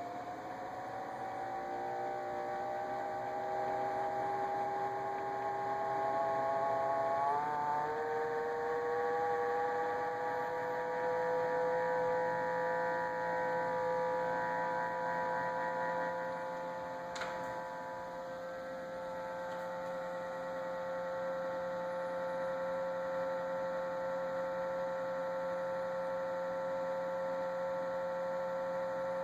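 Samsung refrigerator giving out the unwanted tonal hum it is being filmed for: a whine of several tones that climbs slowly in pitch for about eight seconds, then holds steady, with one faint click partway through.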